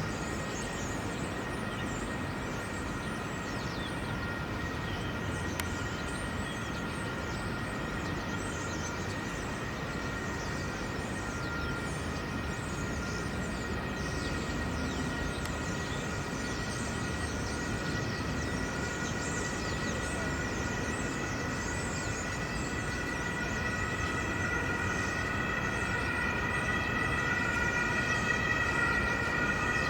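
Ambience of a large city construction site: a steady rumble and hiss with a high steady whine that grows louder toward the end, and many brief high chirps.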